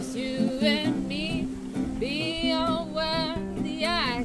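Background song: strummed acoustic guitar with a singing voice.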